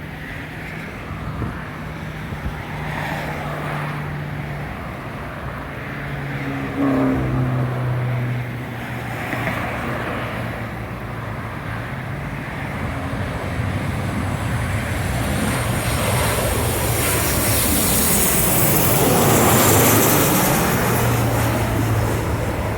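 Jet airliner on landing approach flying past, its engine noise and high whine building to the loudest point a few seconds before the end, with a sweeping rush as it goes by, then starting to fade.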